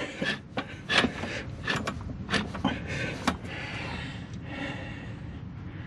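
Metal alignment tool clinking and knocking against the engine and transmission case as it is fitted over the alignment posts: a run of irregular knocks for about three seconds, then only a steady low hiss.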